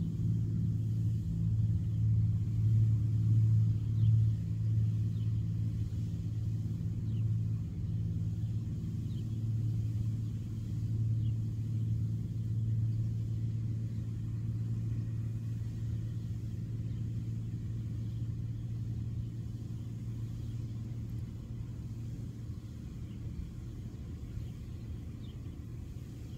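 Steady low mechanical hum, like a large engine or machinery running, that slowly fades over the whole stretch.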